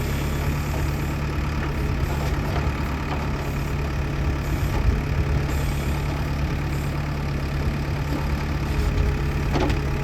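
Backhoe loader's diesel engine idling steadily, with a brief knock near the end.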